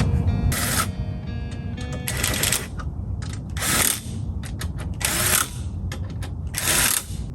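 Ratchet wrench clicking in short bursts, one stroke about every second and a half, over background music.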